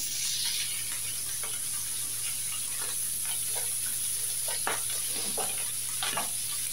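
Parboiled chicken livers sizzling steadily in hot butter and olive oil in a frying pan, with a wooden spoon scraping and knocking against the pan several times as they are stirred.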